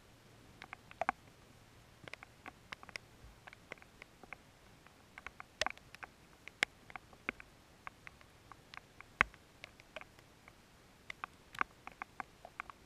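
Scattered raindrops ticking on the camera housing, sharp irregular clicks a few times a second with no steady rain hiss behind them.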